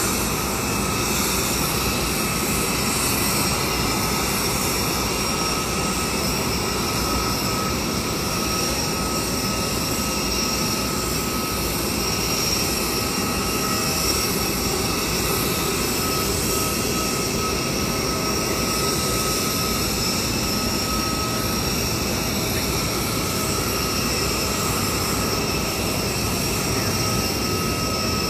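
Steady jet turbine whine over a broad rush from a parked Boeing 747 presidential jet (VC-25A) running at idle, with a few thin high tones held even and unchanging.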